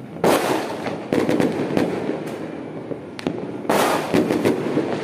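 New Year fireworks going off all around: a continual crackle of pops and bangs, with a loud cluster of bangs just after the start and another about three-quarters of the way through.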